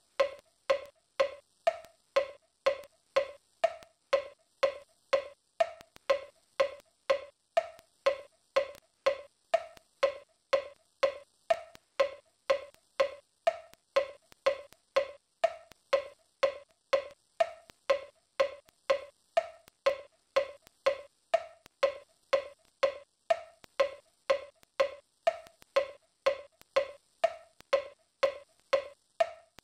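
A wood-block-like percussion beat knocking steadily about twice a second, every few strokes one a little higher in pitch.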